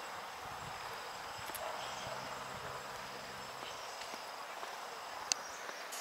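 Insects trilling steadily at a high pitch, with soft footsteps and a single sharp click about five seconds in.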